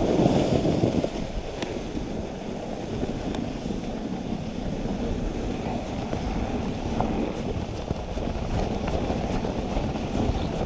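Dog sled runners sliding over packed snow, a steady noise with wind buffeting the microphone, a little louder in the first second.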